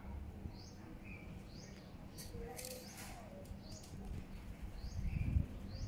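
A small bird calling over and over, one short high chirp about once a second, with a few sharp clicks near the middle.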